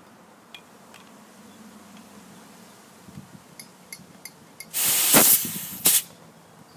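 A few light metallic clicks, then a loud hiss of escaping CO2 about five seconds in, lasting about half a second and tailing off, followed by a second short hiss: the 9 oz CO2 tank gassing up a Maverick pump-action paintball marker as it is threaded in.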